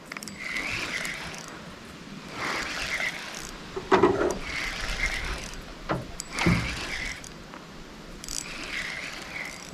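Fishing reel being cranked in spells of about a second each, its gears whirring, as a hooked fish is reeled in. There are a couple of louder thumps about four seconds in and again two and a half seconds later.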